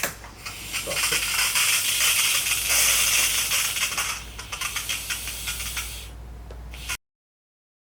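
Espresso machine steam wand hissing and sputtering as steam is purged through it to clean the inside of the wand. The hiss comes and goes with many small crackles, then cuts off about seven seconds in.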